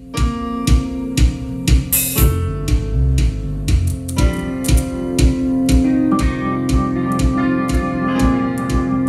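Live dark-wave/industrial rock band playing: a steady drum beat of about two hits a second under sustained synthesizer chords and electric guitar.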